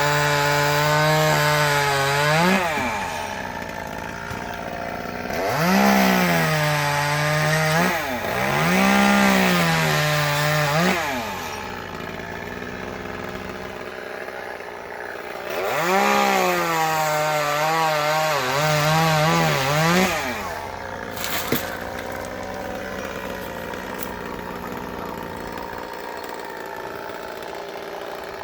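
Gas chainsaw revving up to full throttle three times to cut wood, its pitch sagging under load, and dropping back to idle between cuts. A single sharp click comes about two-thirds of the way through.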